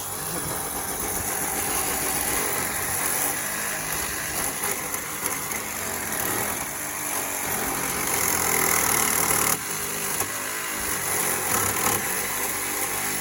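Battery-powered saw running steadily, cutting through the metal of a scooter shock to get at the spring's lock nut.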